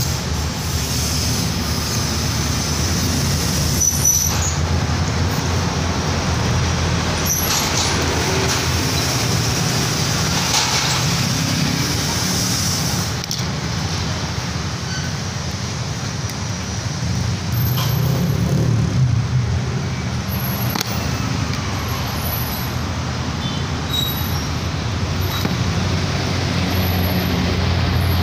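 Steady low rumble of road traffic, swelling a little about two-thirds through, with a few faint clicks.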